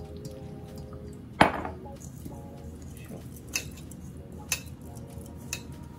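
Hands mixing flour and water into dough in a stainless steel mixing bowl, with one loud knock about a second and a half in and a few lighter clinks of the bowl after it.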